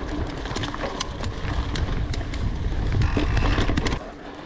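Mountain bike rolling fast over a rough grass-and-dirt track: a heavy low rumble of wind buffeting the microphone and tyres over the ground, with many sharp rattling clicks from the bike. The rumble drops off sharply about four seconds in.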